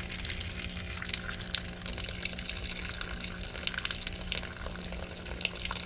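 Water trickling and splashing from an open outdoor hose spigot as the house's water pressure drains off after the main supply is shut, with a steady low hum underneath.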